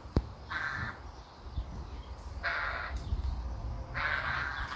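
A crow-family bird gives three harsh caws, each about half a second long and spaced about two seconds apart. These are the calls of a parent bird, probably agitated over its fledgling that has left the nest and cannot yet fly.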